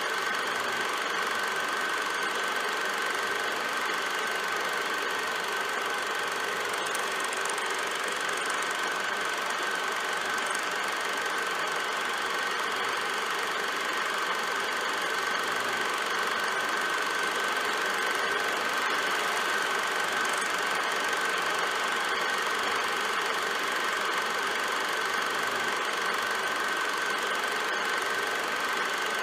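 Film projector running: a steady mechanical whir with a constant high whine, unchanging throughout.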